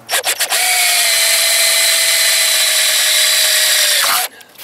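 Electric drill boring a hole through a thin metal plate: a few short stutters, then a steady motor whine whose pitch sags slightly as the bit cuts, stopping abruptly about four seconds in.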